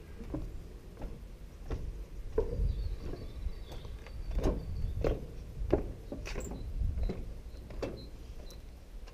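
Footsteps on the weathered wooden planks of a steel railway bridge's walkway: a knock about every two-thirds of a second at walking pace, over a steady low rumble.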